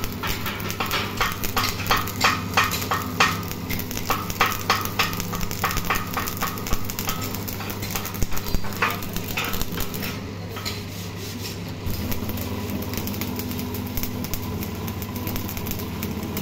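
Stick (arc) welding on steel box-section tubing: the arc crackles and sizzles with sharp pops, over a steady low hum. The crackling is densest in the first half and thins out later.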